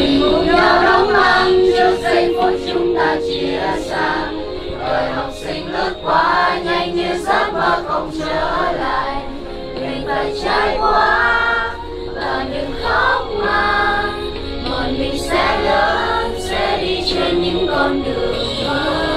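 Song with several voices singing together over music.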